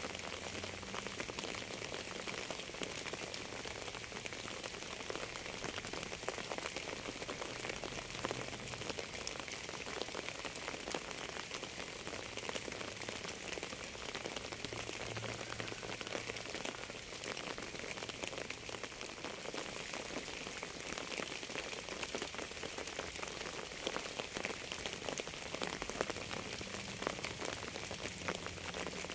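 Steady rain falling: an even hiss of rain with many small individual drop taps mixed through it, holding at the same level throughout.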